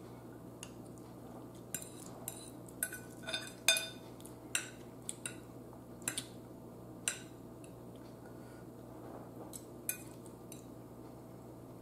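A metal fork clinking and scraping against a ceramic bowl of food: about a dozen light, irregular clicks, some with a short ring, clustered between about two and five seconds in and sparser after.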